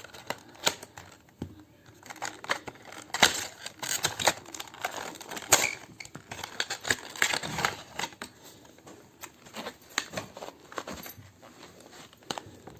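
Hands opening a portable hard drive's retail box: irregular clicks, taps and rustles of cardboard and plastic packaging being pulled open.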